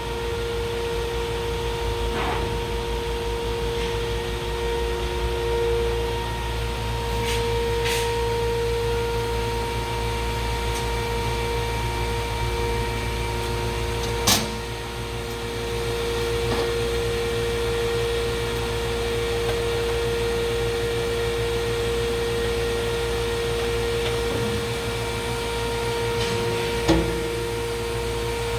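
Durmazlar hydraulic press brake's pump unit running with a steady hum and whine. There is a sharp click about halfway through and another near the end.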